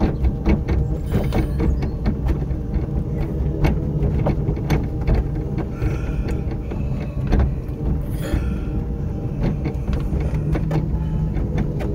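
Small vehicle's motor humming steadily, with frequent clicks and rattles as it rolls along a paved path.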